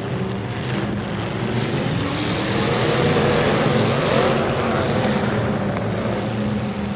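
Demolition derby car engines running at high revs, with a rev rising and falling about four seconds in.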